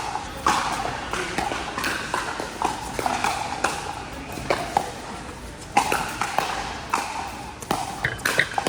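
Pickleball paddles hitting the plastic ball: sharp, irregular pops, some in quick pairs, over a murmur of voices.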